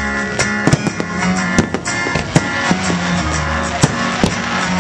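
Music with guitar and drums plays under a fireworks display, with repeated sharp bangs from shells bursting overhead, the strongest about four seconds in.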